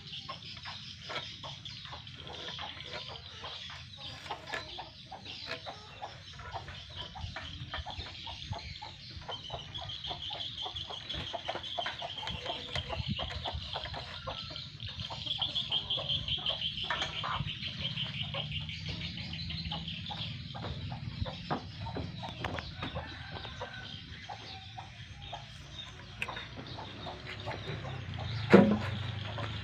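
Chickens clucking, over a steady high buzz and scattered short clicks, with one sharp loud knock near the end.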